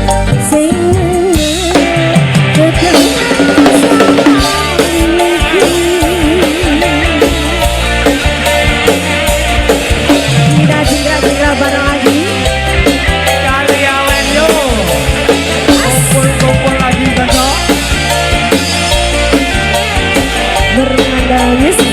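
Live dangdut band music: a drum kit keeps a steady beat under a melody line with wavering pitch.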